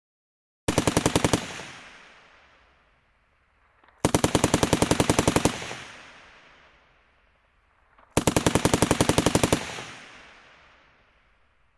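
General purpose machine gun firing three bursts of automatic fire, about ten rounds a second: a short first burst, then two longer ones. Each burst trails off in a long echo.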